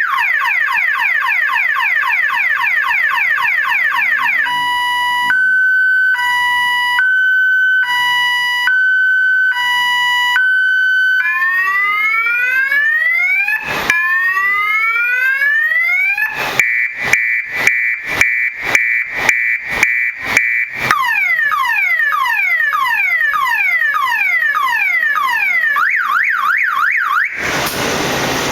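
A 12-volt, 3-inch electronic six-tone siren cycling automatically through its tones: a fast warble, a two-tone hi-lo alternation, two slow rising wails, a steady tone pulsed about twice a second, a rapid yelp, and a harsh buzz near the end.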